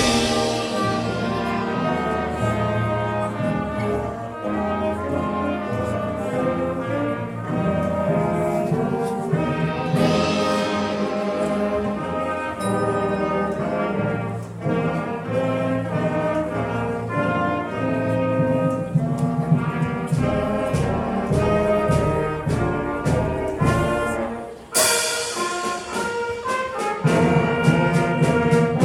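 Band music led by brass instruments such as trumpets and trombones, with bright crashes about ten seconds in and again near the end.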